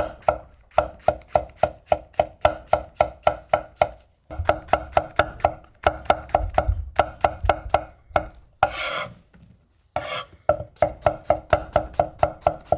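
Chef's knife slicing fresh shiitake mushrooms thinly on a wooden cutting board: a quick, even run of taps, about four or five a second, broken by two short pauses. A brief rustling noise comes about two-thirds of the way through.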